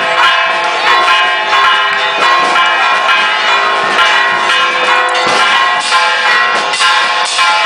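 Church bells pealing: one stroke after another, their tones ringing on over each other.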